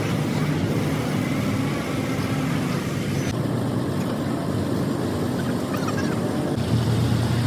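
A large engine running steadily with a low rumble; about two-thirds of the way through, a deeper hum grows stronger.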